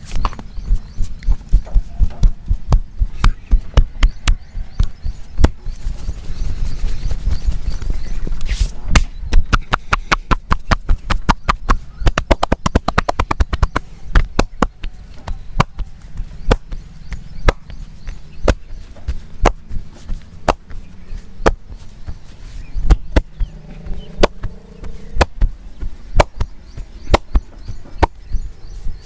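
Hands striking the body in a percussive massage: a steady series of slaps and chops. About a third of the way in they speed up into a fast run of rapid taps, then slow to spaced strikes again.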